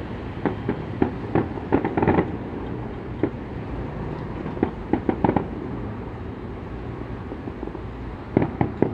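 Fireworks going off: irregular volleys of sharp bangs and pops in clusters, with a quieter stretch past the middle, over a steady low background rumble.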